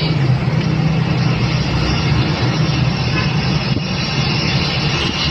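Steady low engine hum and road noise of a motor vehicle, heard from inside it while it moves through traffic.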